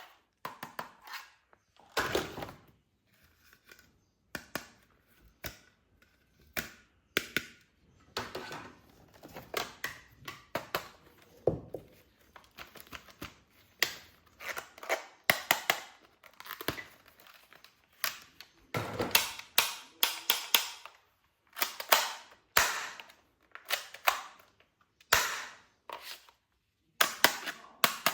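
Irregular sharp clicks, snaps and clacks of plastic toy guns being handled and worked, some in quick clusters.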